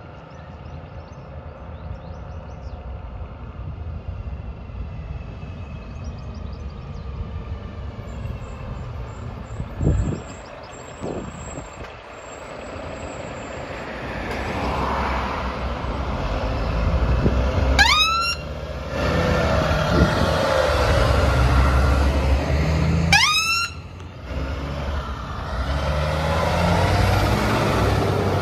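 MAN fire tenders' diesel engines running, growing louder as the trucks approach and pass close by. There is a low thump about ten seconds in, and two short rising siren whoops, one about two-thirds of the way through and another about five seconds later.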